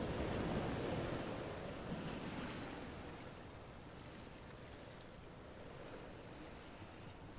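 Raw ground-beef burger patties sizzling in hot oil in a frying pan, a steady hiss that gradually grows quieter.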